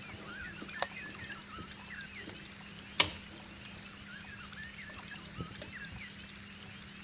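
Rain trickling and dripping over a steady hiss, with crackles from a wood fire; the loudest is a single sharp pop about three seconds in, and a smaller one comes near the first second.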